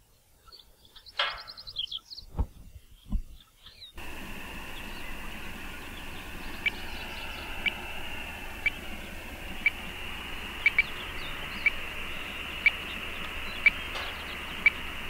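VHF radio-telemetry receiver hissing with static, with a short beep about once a second: the pulse of a mule deer's radio collar picked up through a handheld Yagi antenna. The hiss and beeps start suddenly about four seconds in; before that it is quiet but for a few light knocks and a brief chirp.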